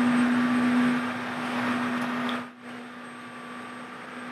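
KiHa 25 diesel railcar standing at the platform with its engine idling: a steady low hum under a rushing noise. About two and a half seconds in, the noise drops away and the hum goes on more quietly.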